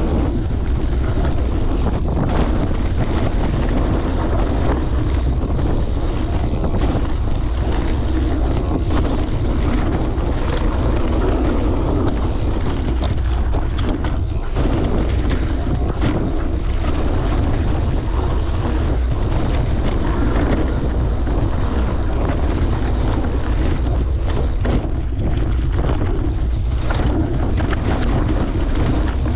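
Wind buffeting the microphone of a handlebar-mounted action camera as a mountain bike rolls fast over a dirt trail, with tyre rumble and scattered knocks and rattles from the bike over bumps.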